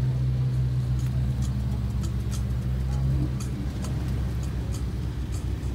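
Lamborghini Huracán Spyder's V10 engine idling with a steady deep hum that eases a little about three and a half seconds in, with faint light clicks over it.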